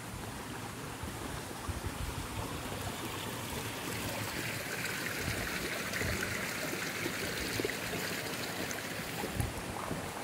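Running water of a small stream, a steady rushing that grows louder for a few seconds in the middle and then eases off.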